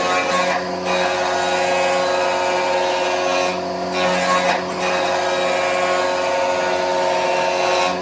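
Electric woodworking power tool running steadily, a motor hum with a noisy hiss over it; the hiss thins briefly a few times.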